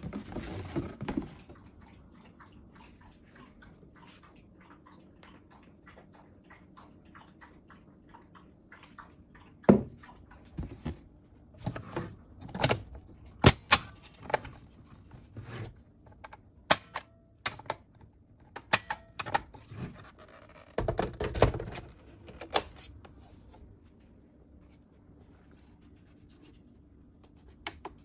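Plastic clicks, knocks and thuds of a Ninja blender's pitcher and lid being handled and locked into place, coming in scattered groups with quiet stretches between.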